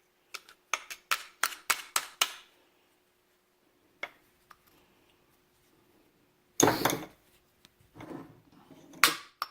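Metal clinking and tapping as a tool works on the parts of a CV axle joint. A quick run of about eight sharp clicks comes in the first two seconds and a lone click at about four seconds. A louder clatter follows near seven seconds, then softer scraping and one more sharp click near the end.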